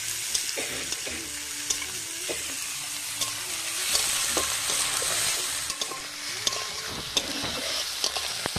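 Sliced onions sizzling in hot oil in a pan while being stirred, with scattered scraping clicks from the stirring.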